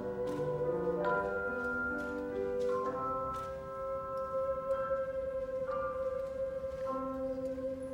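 Theremin holding one long note over tone chimes struck in a series of ringing chords.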